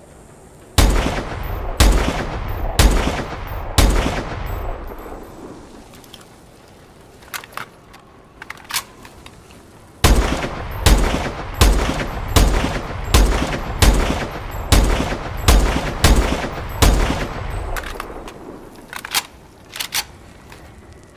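SVO rifle firing: four shots about a second apart, each with a long echoing tail, then a few light clicks. After that comes a run of about a dozen shots at roughly two a second, whose echo fades away, with more light clicks near the end.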